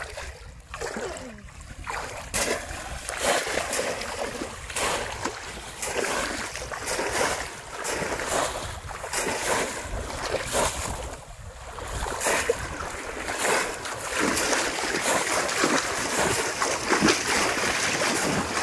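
Shallow pond water splashing hard and irregularly as bamboo polo fish traps are thrust down into it again and again by people wading, with a short lull about halfway through.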